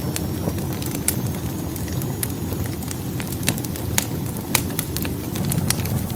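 Wood fire burning in a fireplace: irregular sharp pops and snaps of the burning logs over a steady low rumble of the flames.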